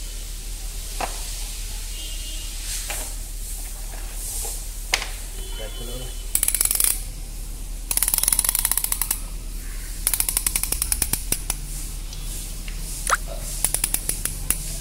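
Ratchet of a piston ring compressor being tightened around a piston, squeezing the rings so the piston can be pushed into the cylinder block. It comes as four quick runs of fast clicking, each about a second long, with a few single clicks between them.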